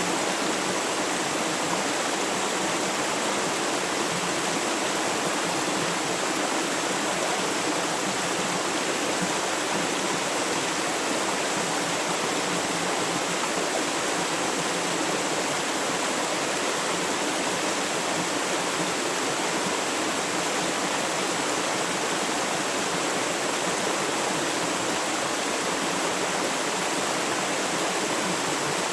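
Flowing river water: a steady, unbroken rush of running water with no change in level.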